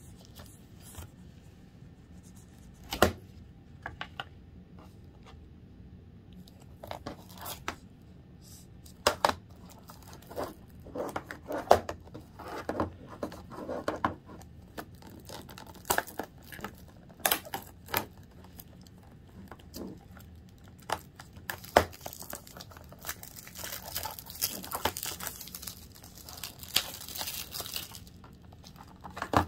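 Plastic shrink wrap being picked at, torn and peeled off a Blu-ray case: scattered sharp clicks and short crackles, then a longer stretch of steady crinkling near the end.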